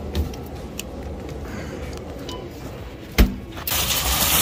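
Glass-door drinks cooler being opened and shut, with a dull thump near the start and one sharp knock about three seconds in, over low store background noise. Just before the end, a much louder steady hiss abruptly takes over.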